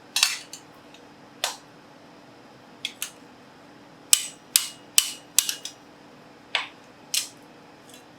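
Sharp metal-on-metal clacks, about a dozen irregular strikes each with a brief ring, as the tight riveted pivot of hand-forged steel double calipers is worked to free it up; they come thickest about halfway through.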